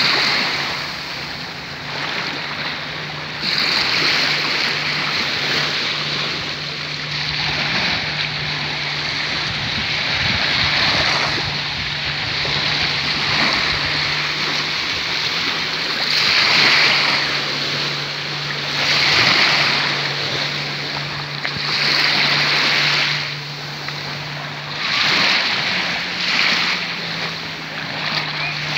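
Small sea waves washing up on a sandy shore, the surf swelling and falling every two to three seconds. Wind rushes on the microphone, and a steady low hum runs underneath.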